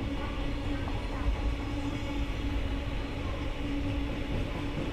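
Freight train wagons rolling past on the rails: a steady rumble of wheels on track, with a constant hum underneath.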